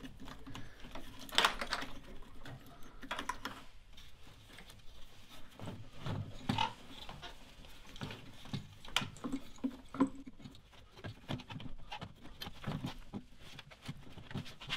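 Hands moving a wiring loom and plastic connectors and hoses around an engine's intake manifold: irregular light clicks, rustles and scrapes of plastic and rubber being handled.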